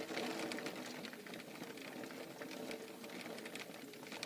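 Heavy rain pouring down: a steady, dense patter of countless drops.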